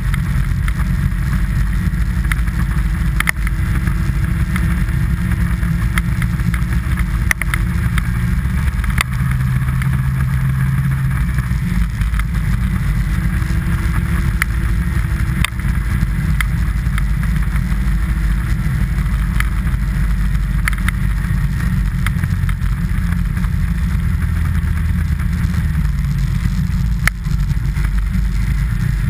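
Steady wind rumble on the microphone of a camera moving fast down a packed snow trail behind a sled, with scattered small clicks and knocks from the ride.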